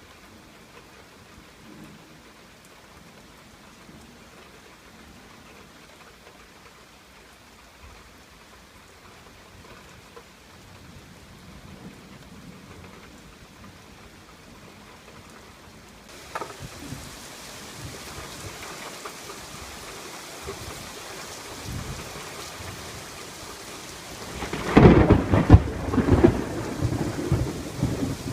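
Thunderstorm: steady rain with faint low rumbles of distant thunder. About halfway through, the rain grows louder. Near the end a loud crack of close thunder breaks into a crackling, rolling rumble.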